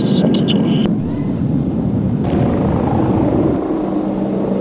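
Royal Air Force Tornado F.3's twin RB199 turbofan engines running at low power as the jet taxis: a steady jet noise with a low hum, shifting abruptly about a second in and again near the end.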